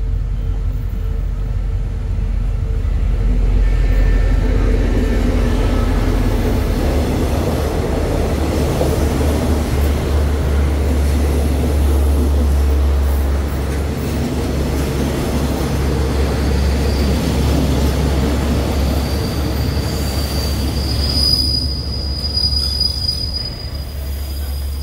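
State Railway of Thailand passenger train coaches rolling along a station platform: a heavy low rumble with wheel and rail noise. A thin, high, steady squeal comes in late and is strongest near the end.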